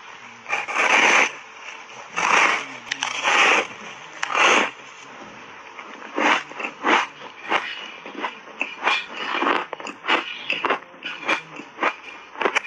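A block of ice coated in matcha powder being bitten and crunched, close to the microphone: four long, loud crunching bites in the first five seconds, then shorter, quicker crunches of chewing, about two a second.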